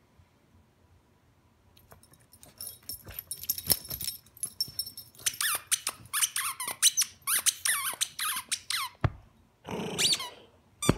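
Dog chewing a squeaky toy football. After about two seconds of quiet comes crackly chewing, then from about five seconds in a run of repeated squeaks, a couple a second, with a brief pause and a thump near the end.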